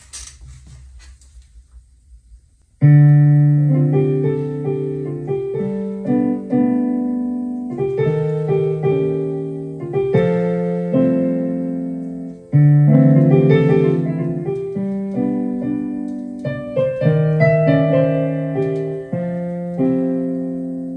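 Digital piano playing slow chords, starting about three seconds in. Each chord is struck and left to die away before the next, every second or two.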